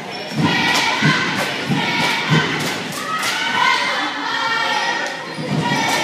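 A basketball dribbled on a hardwood gym floor, thumping about every half second for the first couple of seconds and again near the end, under high-pitched shouting from spectators and players.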